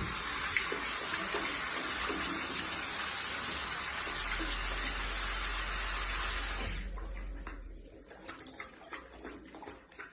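Steady rush of running water, like a tap or bath filling, which stops about seven seconds in.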